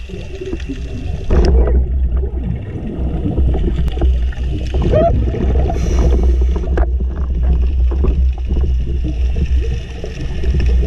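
Underwater sound of scuba diving picked up by a camera: the diver's regulator breathing and exhaled bubbles gurgling and crackling over a steady low rumble, with a few sharp clicks.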